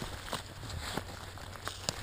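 Footsteps crunching through dry fallen leaves, a few irregular steps.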